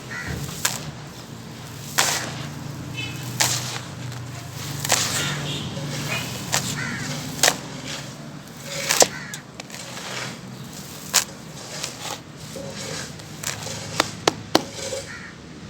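Charcoal crunching and crumbling: irregular sharp snaps mixed with a gritty crackle, the loudest snaps about two-thirds of the way through and a quick cluster near the end.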